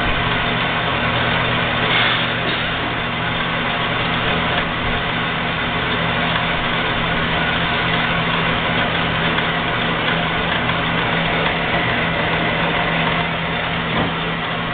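Jet 7" x 12" horizontal metal-cutting band saw running steadily: the 3/4 hp motor hums and the blade and drive whir.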